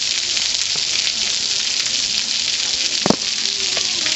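Steady high hiss of a bicycle rolling along the road, with a single sharp knock about three seconds in.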